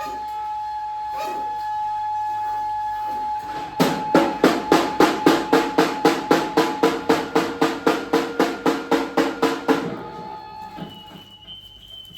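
Church bell struck rapidly, about four strokes a second, its tones ringing on between strokes. The run starts about four seconds in and stops about six seconds later.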